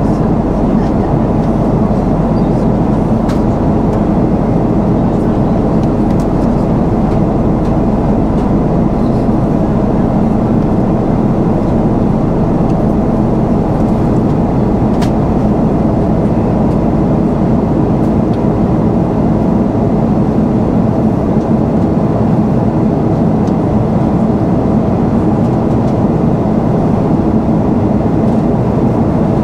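Steady cabin drone of an Airbus A340-300 in flight, heard from inside the passenger cabin: engine and airflow noise from its four CFM56 engines, even and unchanging, with a faint click about halfway through.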